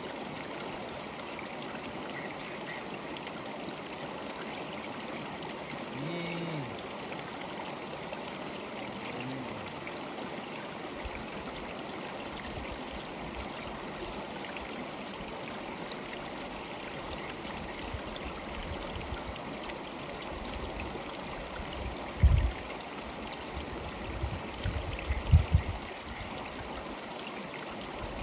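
River water flowing steadily, an even rushing noise. Near the end a few low thuds stand out above it, the loudest sounds here.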